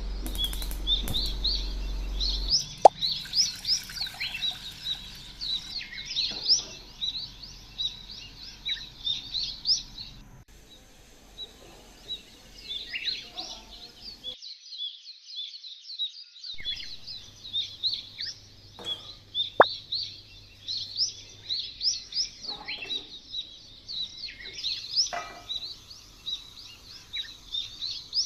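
Many small birds chirping rapidly and continuously, with a few sharp clicks among them.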